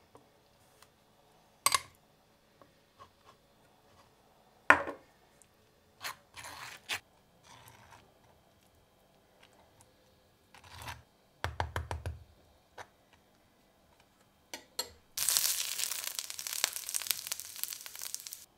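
Metal spoon clicking against a glass bowl and scraping mayonnaise across crisp toast, in short separate strokes with a few sharp clicks. About fifteen seconds in, a dense crackling hiss as arugula goes into a frying pan, cut off suddenly at the end.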